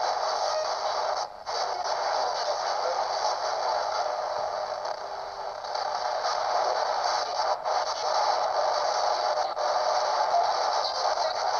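A steady hiss of static, with a brief dropout about a second in and a few faint clicks.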